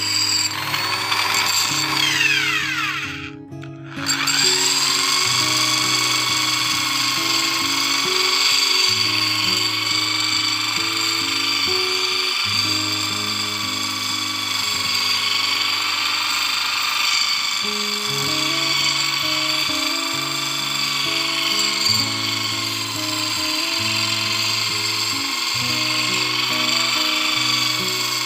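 Electric angle grinder running with a high whine as its disc grinds the edges of planer knives held in a sharpening jig, to make the knives even. The whine wavers with the pressure on the blade. About two seconds in it falls away and briefly drops out, then comes back up to speed. Background music with a stepped bass line plays throughout.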